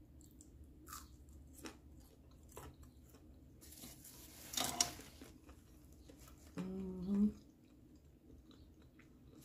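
A person chewing and crunching a crispy fried hash brown stick with small wet clicks of the mouth, with one louder crunchy burst about halfway. A short closed-mouth 'mm' hum, rising at its end, comes about seven seconds in.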